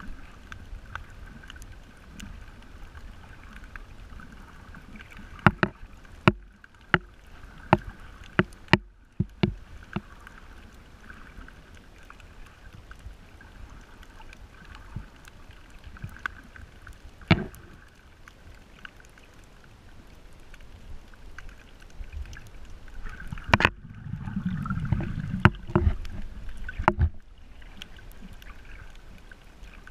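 Muffled underwater sound picked up through a camera's waterproof housing: a steady low rush of water with a faint hum, broken by sharp clicks or knocks, a quick run of about eight some six to ten seconds in and a few more later. Near the end a louder, low rushing swell comes up for a few seconds.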